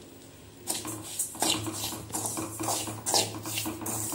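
Metal spoon stirring and scraping dry semolina around a steel kadai as it dry-roasts, a quick series of scraping strokes starting a little under a second in.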